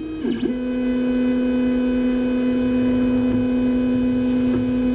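Printrbot Simple Metal 3D printer's stepper motors whining steadily at one pitch as the printer moves through its start-up homing routine, with a brief wobble in pitch about half a second in.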